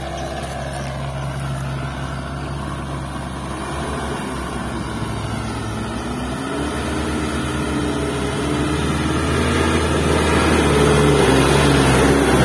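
Isuzu dump truck's diesel engine pulling away through mud under a full load of soil, revving up twice with rising pitch and growing louder as it draws close.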